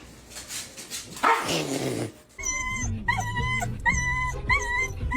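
A dog's vocalizing: a falling, rough sound about a second in, then a run of about five short, evenly spaced calls.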